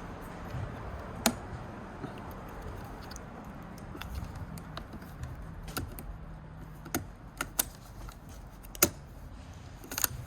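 Irregular sharp clicks and light metallic taps and rattles from handling the opened iMac: a loose screw that fell inside the case being fished out.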